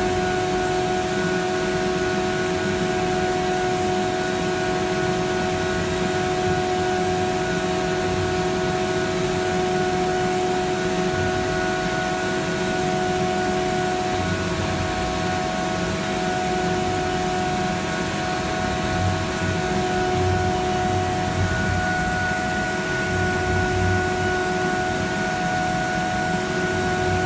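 CNC router spindle running at 20,000 RPM, giving a steady high whine over a rough, uneven rumble as the cutter machines a sandal sole.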